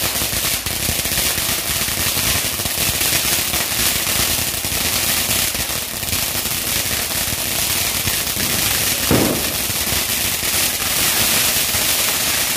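A long string of firecrackers going off: a dense, continuous run of rapid pops and crackles. There is a brief louder sound about nine seconds in.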